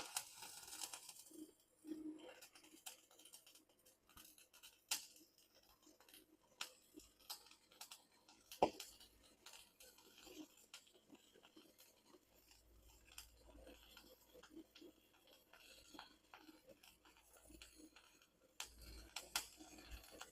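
Faint, irregular clicks and scraping of small objects being handled, with one sharper knock about eight and a half seconds in.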